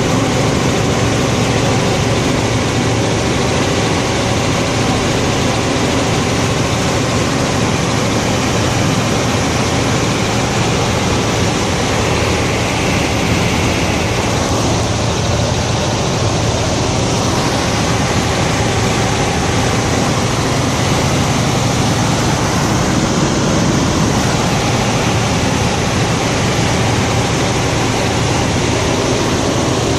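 Helicopter in flight, heard from inside the cabin: a loud, steady drone of engine and rotor.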